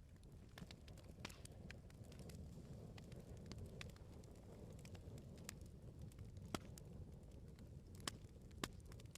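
Burning firewood crackling, with scattered sharp pops over a low steady rumble of the flames. The loudest pop comes about six and a half seconds in, with two more near the end.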